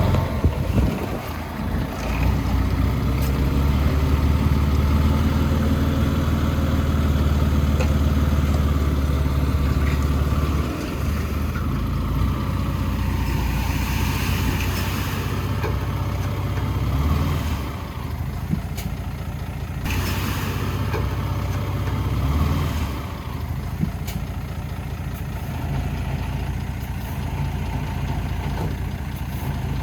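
Heavy-equipment diesel engine running throughout, its low note steady and then shifting several times as the load or engine speed changes.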